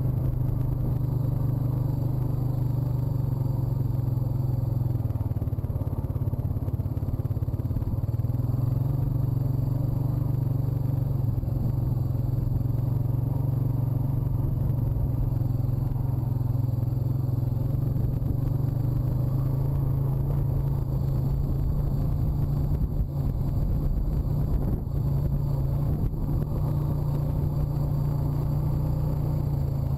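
Honda ATV's single-cylinder four-stroke engine running at a steady cruising speed, its pitch wavering only slightly.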